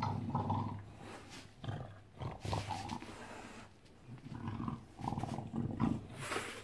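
English bulldog grunting and play-growling in several short low rumbling bouts with pauses between, its face pressed close.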